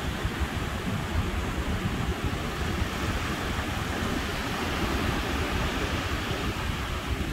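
Steady rush of ocean surf and wind, with an uneven low rumble of wind on the microphone.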